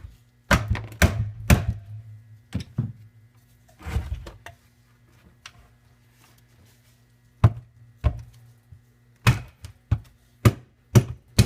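Rubber mallet knocking on a 70cc Chinese quad engine's crankcase to split the case halves: about a dozen sharp thunks in irregular groups, with a lull in the middle.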